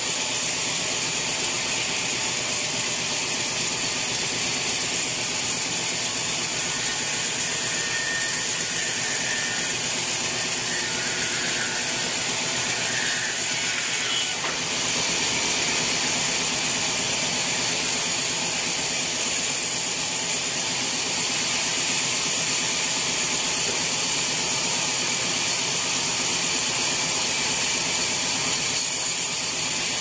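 Sawmill band saw ripping a teak log on its carriage: a loud, steady, hissing noise of the running blade cutting through the wood, with a brief dip about halfway.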